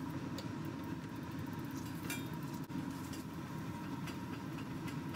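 Electrostatic powder coating gun running while spraying black powder: a steady low mechanical hum with a thin steady whine above it and a few faint clicks.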